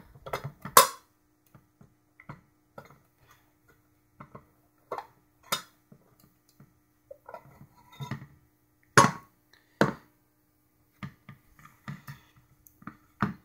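A screwdriver backing screws out of a small sheet-metal equipment case, then the metal case being taken apart: scattered clicks and scrapes with a few louder metallic clunks.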